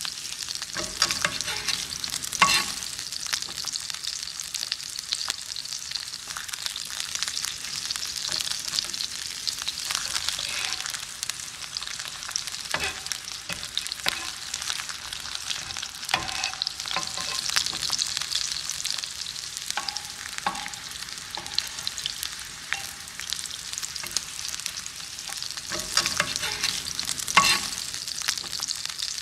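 French fries deep-frying in hot oil: a steady dense sizzle full of small crackles and pops, with a few sharper pops now and then.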